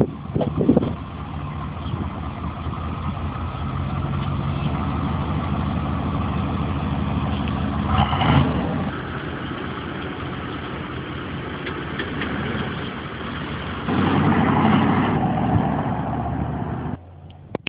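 Buick Roadmaster Estate Wagon V8 exhaust, with a few sharp bursts at the start, then idling steadily. There is a brief rev about halfway through. Near the end it runs louder for a few seconds, then cuts off suddenly.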